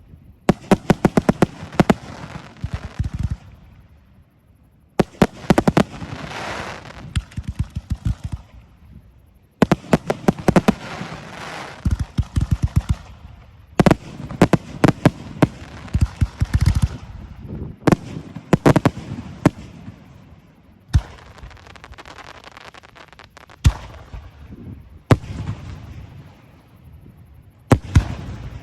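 Aerial fireworks going off: rapid volleys of sharp bangs and crackling in clusters a few seconds apart, with a hiss between them, thinning to single loud reports every second or two near the end.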